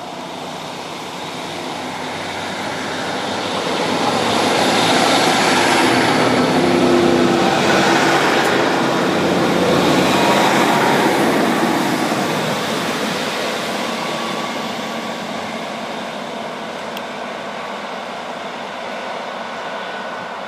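British Rail Class 150 Sprinter diesel multiple unit passing close by. The drone of its underfloor diesel engines and the noise of its wheels on the rails grow louder, stay loudest for several seconds in the middle, then fade slowly as it moves away.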